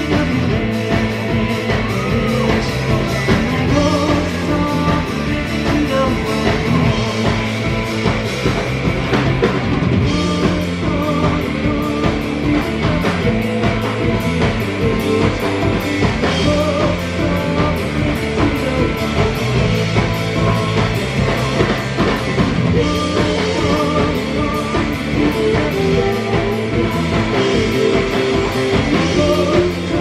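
Live rock band playing: a drum kit keeping a steady beat under electric guitar and bass guitar, with a woman singing.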